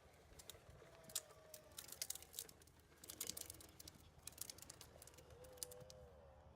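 Scattered light clicks and taps, irregular and at times several a second, with a faint wavering high tone briefly near the end.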